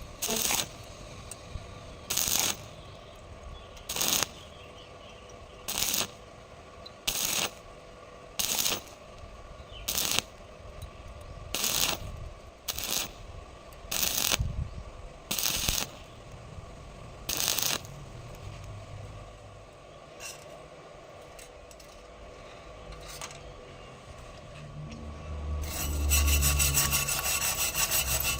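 Repeated scraping strokes on metal, about a dozen, each roughly half a second long and spaced about a second and a half apart. After a quieter stretch, a faster, rattling scrape starts near the end.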